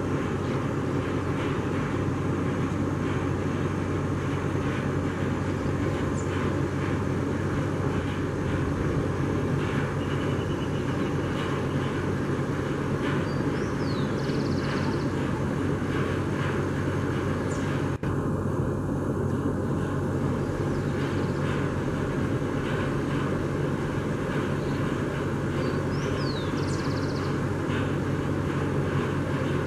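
Jet engines of an Airbus A330 airliner passing overhead at altitude, a steady distant rumble. The sound dips out briefly about two-thirds of the way through.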